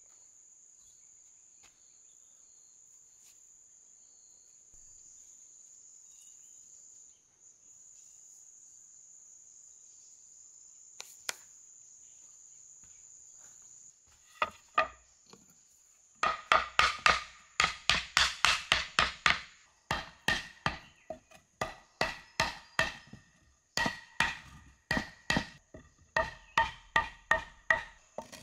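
A steady high insect buzz, then from about halfway a hammer knocking on a wooden board laid across bricks, in quick runs of three or four blows a second with short pauses, tapping the bricks down level into their sand bed.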